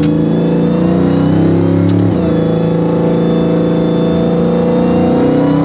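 Supercharged Hellcat Redeye 6.2-litre V8 in a swapped Ram pickup running under way, its pitch stepping about two seconds in and rising again near the end.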